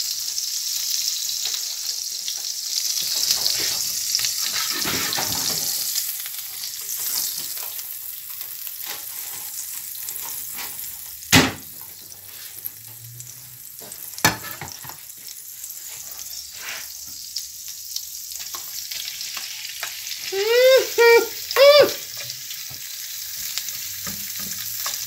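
Garlic butter sizzling and frying in a non-stick pan, loudest in the first few seconds and then fainter, with squid pieces being stirred in it with a spatula by the end. Two sharp knocks come midway, and a few short, hum-like voice sounds come near the end.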